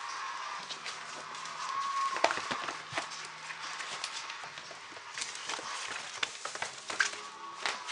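Rat terrier puppies scrambling at play, their claws clicking and scrabbling on a hardwood floor in quick irregular taps, with a few louder knocks.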